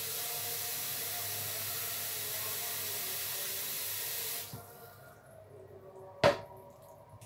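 Kitchen tap running into a stainless steel sink, turned off about four and a half seconds in. A single sharp knock comes near the end and is the loudest sound.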